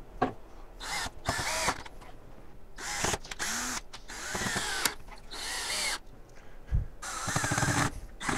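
Cordless drill run in a series of short bursts, its motor winding up and back down with each trigger pull as it works into the pine frame's X brace.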